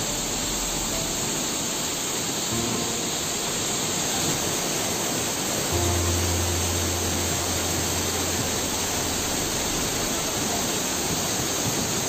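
Steady rush of water falling down a tall waterfall, with soft background music over it that adds a low held bass note from about six seconds in.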